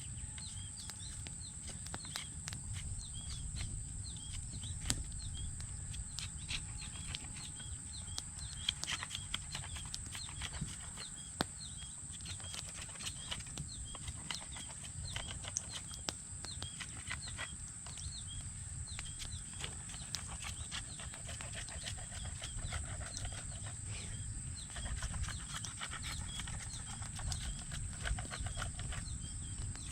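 Knife whittling a wooden stick to a sharp point: a long run of short, evenly repeated scraping strokes with scattered sharp clicks.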